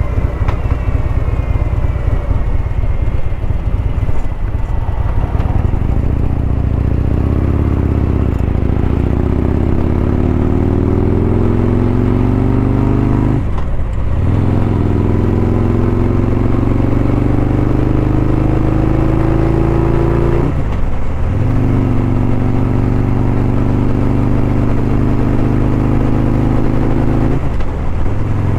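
Harley-Davidson Street Glide's Milwaukee-Eight V-twin engine pulling under acceleration, heard from the rider's helmet with wind rush. The engine pitch climbs steadily, and three times it drops briefly for an upshift and then climbs again.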